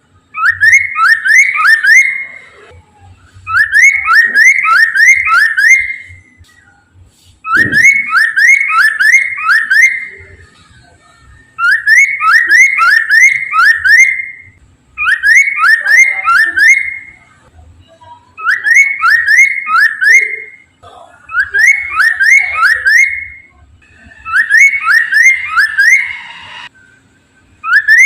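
Poksay mandarin, a laughingthrush, singing loud repeated phrases of four to six quick rising whistled notes, a phrase about every three seconds. A single brief low thump comes about a third of the way in.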